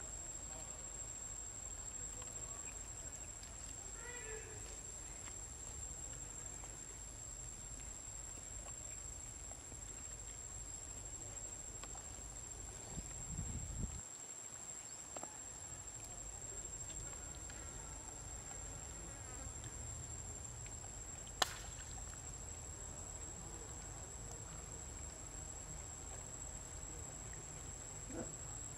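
Outdoor ambience dominated by a steady, thin, high-pitched insect drone over a low rumble, with a few faint short chirps about four seconds in and a single sharp click a little past twenty-one seconds.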